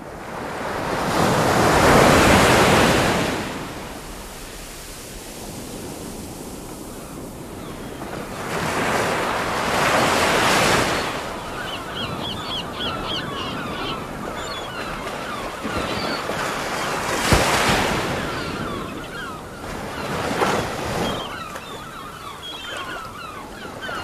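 Ocean waves breaking and washing up a shore in slow surges, four large swells rising and falling away. Faint high chirps join about halfway through.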